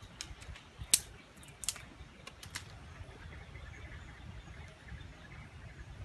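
A series of short, sharp clicks and taps from a thin wooden stick and a plastic water pipe being handled together. The loudest comes about a second in and the clicks stop after two and a half seconds. A low steady rumble runs underneath.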